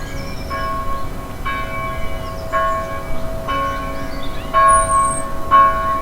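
A church bell tolling steadily, about one strike a second, each stroke ringing on with the same tones. Birds chirp and whistle faintly behind it.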